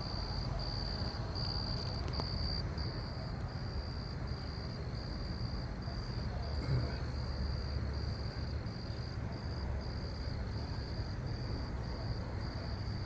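Crickets chirping in a steady, even pulse, about two chirps a second, over a low rumble.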